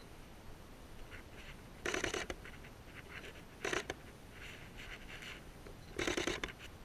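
Scraping and rustling close to the camera's microphone: three short, louder scrapes about two, four and six seconds in, with fainter rustles between.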